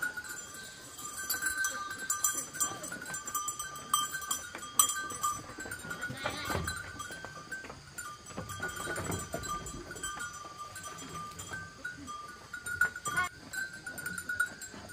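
Goats bleating, with two calls around the middle.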